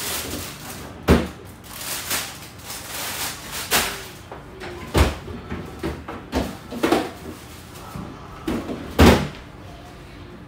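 Irregular sharp knocks and clatters of hard kitchen things being handled and set down, about a dozen, the loudest about nine seconds in.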